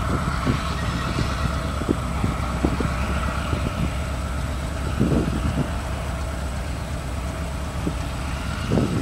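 Diesel-electric locomotive engine running steadily as it hauls a freight train, with scattered clunks from the wheels and cars rolling over the track.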